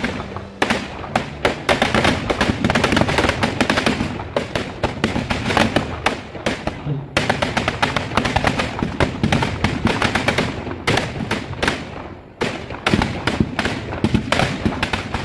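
Firecrackers packed inside a burning Ravan effigy going off in a dense, continuous string of sharp cracks and bangs, thinning briefly about twelve seconds in.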